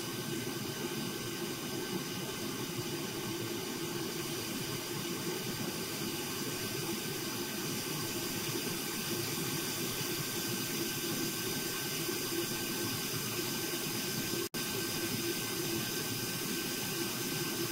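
Quick TR1300A hot air station handpiece blowing air at a raised fan speed: a steady rushing hiss with a low hum beneath it. The sound cuts out for an instant about fourteen seconds in.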